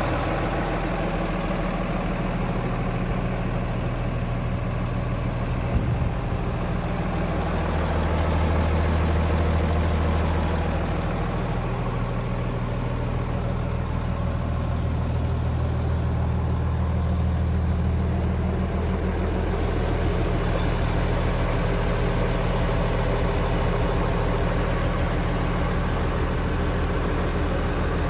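Kenworth truck's Cummins ISL inline-six diesel idling steadily, a low drone that swells louder twice. There is a single sharp click about six seconds in.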